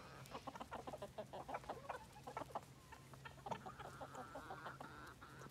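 Flock of chickens clucking faintly, many short, low clucks scattered throughout.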